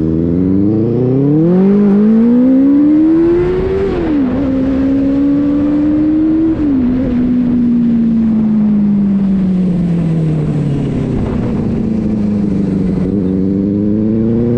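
Benelli 600i motorcycle's inline-four engine accelerating through the gears: the revs climb over the first four seconds, drop sharply at a shift about four seconds in and again at a second shift a little later, then fall slowly as the throttle eases before climbing again near the end.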